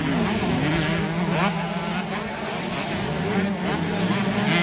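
Several 125 cc two-stroke motocross bikes on the throttle through a dirt corner: a steady engine drone from bikes across the track, with a rider's revs climbing sharply about a second and a half in and again at the end.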